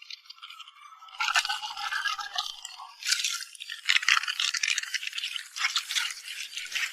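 Fishing groundbait being mixed by hand with water: gritty rasping and scraping strokes of damp bait crumbs, starting about a second in and going on in an irregular run.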